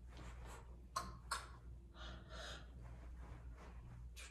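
A woman's faint, effortful breathing, a series of short breaths and exhales from exertion during an exercise set, with two light clicks about a second in.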